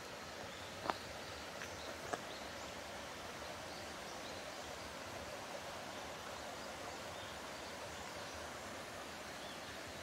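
Steady rushing of a mountain stream, with two sharp clicks about one and two seconds in and a few faint high chirps.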